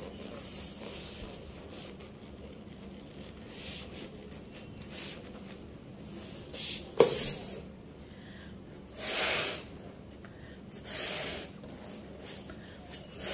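A rubber balloon being blown up by mouth: several long puffs of breath into it, spaced a couple of seconds apart, with one sharp click about halfway through.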